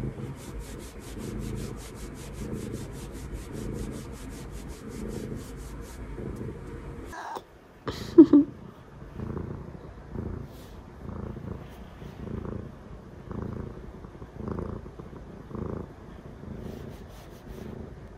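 Tabby-and-white domestic cat purring close to the microphone, swelling and fading about once a second with each breath. A brief loud sound comes about eight seconds in.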